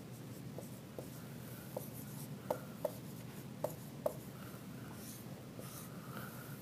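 Dry-erase marker writing on a whiteboard: a string of short, faint squeaks and strokes.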